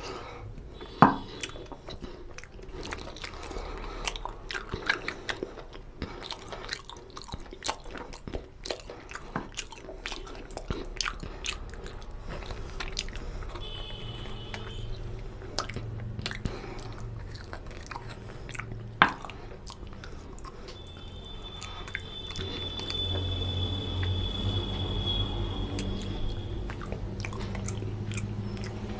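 Close-miked wet chewing and mouth smacking as a man eats oily mutton curry and rice with his fingers, with many small sticky clicks. Two loud, sharp mouth sounds stand out, one about a second in and one about two-thirds of the way through.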